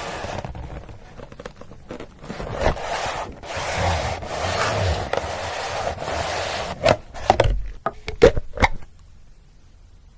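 Scraping and rubbing for several seconds, then a few sharp clicks and knocks, stopping about nine seconds in.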